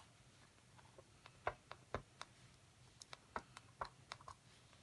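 Adhesive stencil transfer being picked at and peeled off a glass pane by fingernails: faint, scattered clicks and ticks, starting about a second in and coming more often near the end.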